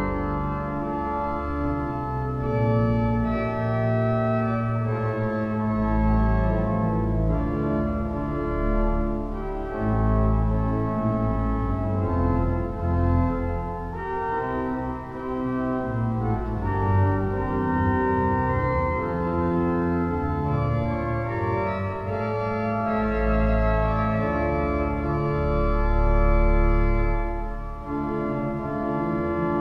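Organ music: held chords and notes that change every second or so over deep sustained bass notes.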